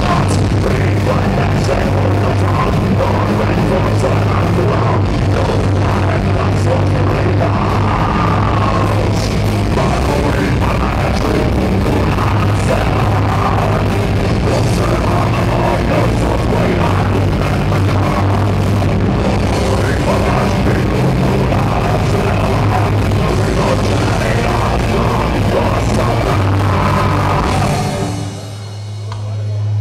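Heavy metal band playing live: distorted electric guitars, bass and drum kit, with a vocalist singing over them. About 28 seconds in the full band drops out, leaving a low sustained tone.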